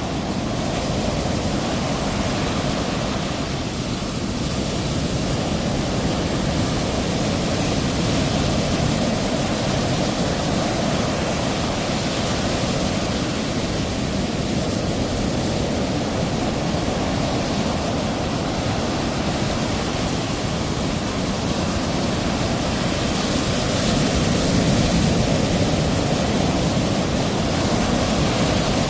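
Ocean surf: a steady, even rush of breaking waves, swelling a little about three quarters of the way through.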